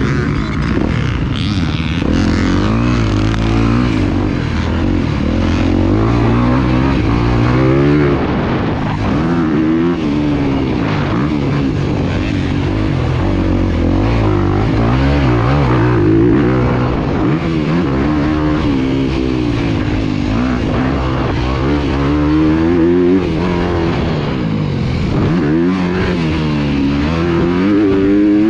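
Motocross dirt bike engine heard from the rider's position, revving up and down over and over as the throttle opens and closes, its pitch climbing and falling every few seconds.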